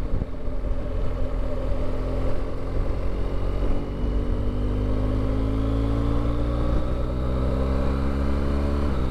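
BMW R1200GS LC's boxer-twin engine running on the road over a steady rush of noise; from about three seconds in its pitch climbs slowly and evenly as the bike gains speed, then dips right at the end.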